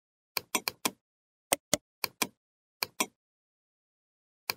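Computer mouse button clicks. A quick run of four comes first, then several double-clicks, each pair about a fifth of a second apart, with dead silence between them.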